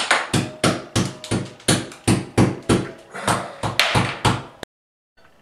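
A hammer knocking the plastic clips of a tile leveling system off porcelain wall tiles set in dry thinset, in quick sharp taps about four a second. The tapping cuts off suddenly about four and a half seconds in.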